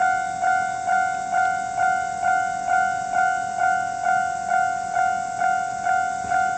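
Japanese railway level-crossing warning alarm ringing: an electronic bell tone struck evenly, a little over twice a second.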